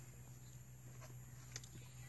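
Near silence: a faint steady low hum, with two faint clicks about a second and a second and a half in.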